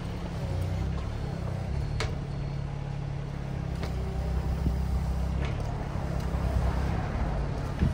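Engine running steadily at low revs, a low hum with a few faint clicks over it.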